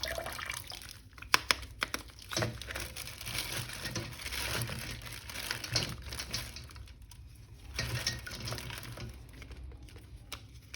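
Water splashing and trickling as a plastic toy figure is washed, with a few sharp clicks from handling it in the first few seconds.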